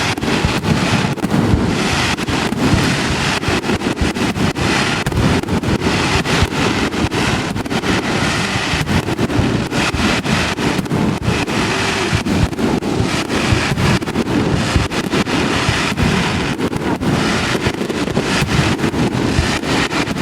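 Fireworks display going off in a dense, continuous barrage of bangs and crackles over a heavy low rumble.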